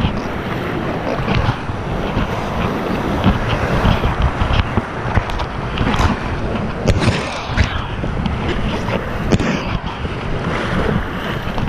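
Rushing whitewater rapids heard close up from a kayak, a constant roar of water with irregular splashes as paddle strokes and waves hit the boat.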